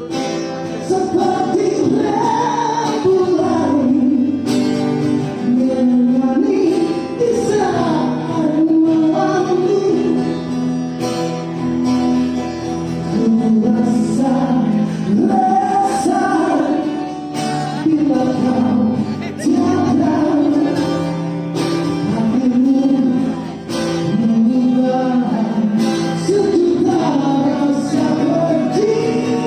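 A rock band playing live: a lead singer's voice carrying a melody over sustained instruments and a steady drum beat.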